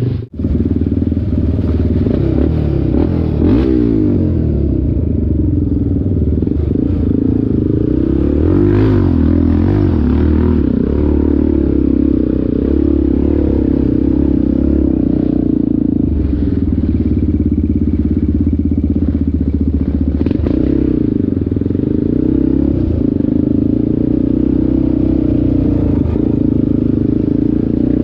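ATV engine running continuously, its revs shifting up and down several times, with rattling clatter and occasional knocks. The sound cuts out briefly just after the start.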